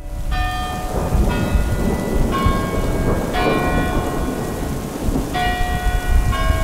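Music: a deep drum rumble under ringing bell-like chords. A new chord is struck about once a second, with a pause near the middle.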